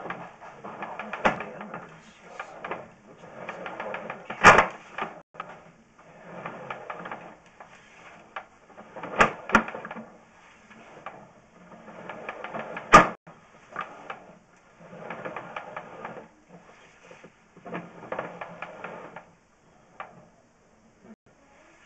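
Sewer inspection camera's push cable being pulled back out of the pipe, a rapid rattling clatter in repeated bursts of a second or two, broken by a few sharp knocks.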